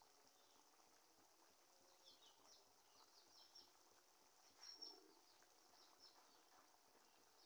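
Near silence, with the faint bubbling of a thick yogurt-and-pea curry simmering in a kadhai and one soft bubble plop about five seconds in. Faint high chirps run throughout.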